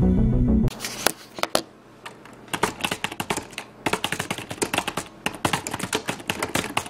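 Loud music that stops abruptly under a second in, then rapid, irregular computer-keyboard typing clicks, a typing sound effect laid under a text title card.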